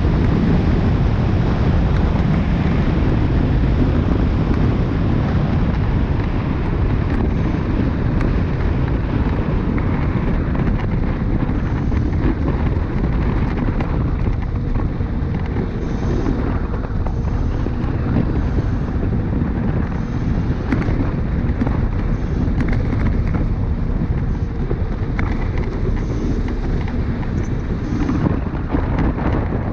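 Wind rushing over the microphone of a camera on a moving Dualtron Thunder electric scooter, with a steady low rumble of its tyres on rough asphalt.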